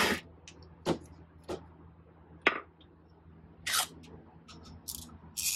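Sharp metal clicks and taps of bolts and the aluminium bearing plate being handled and set against the jet pump housing on a metal workbench, with a short scraping noise about three and a half seconds in and a quick run of clicks near the end.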